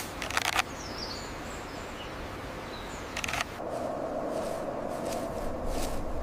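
Outdoor wildlife ambience with a few faint, high bird chirps and some sharp crackling rustles near the start and again about halfway through.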